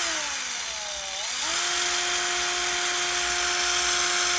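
A Deko handheld power tool's electric motor whining as it runs. Its pitch drops as it slows for about a second, then rises back and holds steady at speed.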